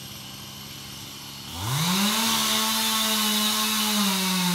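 Chainsaw engine revved up about a second and a half in, its pitch climbing quickly and then held at high revs, dipping slightly near the end.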